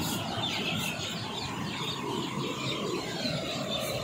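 Rough surf from a cyclone swell: waves breaking and foaming up the sand in a steady wash of noise.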